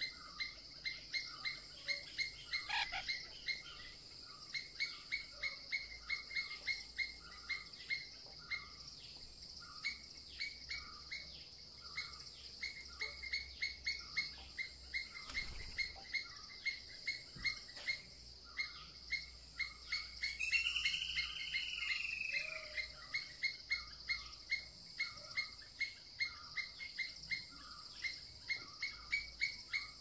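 Forest calls: a short chirp repeating about twice a second over a steady high insect drone. About two-thirds of the way through comes one louder, longer arching call.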